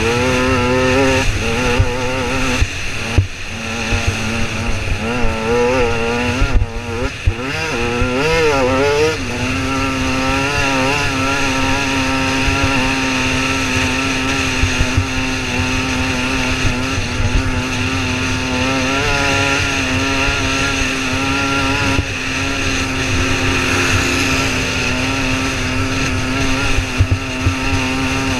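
2009 KTM EXC 125's two-stroke single-cylinder engine running hard under the rider, its revs rising and falling for the first several seconds, then held at a steady high pitch on the straight.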